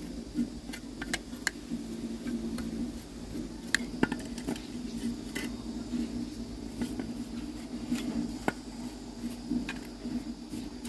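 Scattered light clicks and taps of hard parts and tools being handled, over a steady low hum.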